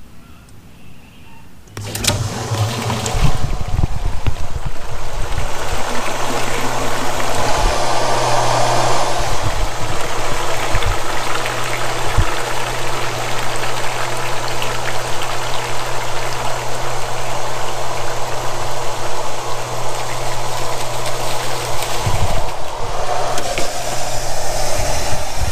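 Red Lion 1 hp shallow-well jet pump starting abruptly about two seconds in, then running steadily with a constant low hum, together with water rushing out of the PVC discharge pipe into a bucket.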